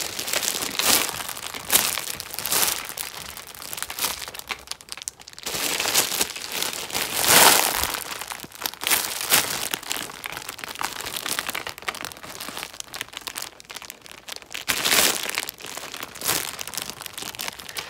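Clear plastic packaging bag crinkling and rustling in irregular bursts as a large squishy inside it is handled, loudest about seven seconds in and again near fifteen seconds.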